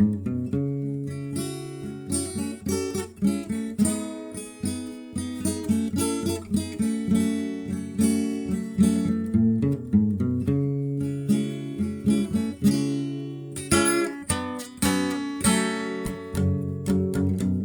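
Acoustic guitar music: chords strummed and notes plucked in a quick, busy rhythm.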